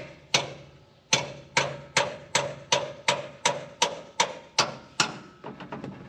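Metal hammer blows ringing on a steel fitting of a combine header, about a dozen hard strikes at roughly two and a half a second, then a few lighter quick taps near the end. The blows are knocking a stubborn, sticking part into place.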